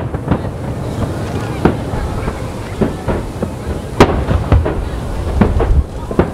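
Aerial firework shells bursting in an irregular run of booms and cracks, roughly one every half second, the sharpest crack about four seconds in, over a steady low rumble.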